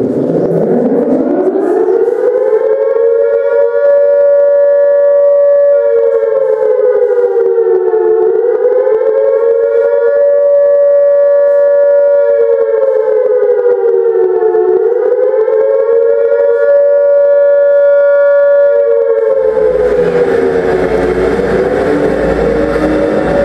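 Air-raid siren winding up to a steady two-note wail, dipping in pitch twice and starting to wind down about twenty seconds in, as a loud low rumbling noise comes in under it.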